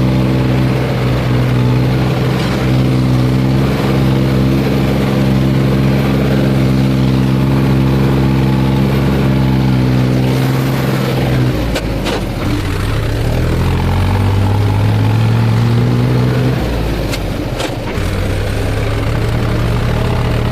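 Tractor diesel engine running steadily under load. About halfway through, its pitch drops and then climbs again as the engine speed changes, with a few sharp knocks in the second half.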